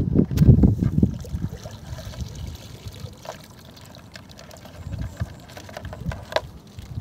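Water pouring and trickling off a small plastic basket trap as it is lifted out of a pond with mud crabs inside, with scattered small clicks. A louder low rumble fills the first second.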